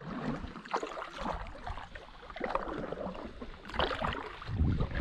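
Water splashing and lapping around a stand-up paddleboard as it is paddled, in irregular splashes of paddle strokes.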